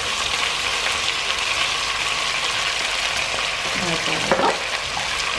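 Potato chunks and diced escalope sizzling steadily in oil and butter in a pressure cooker pot, with a brief louder sound about four seconds in.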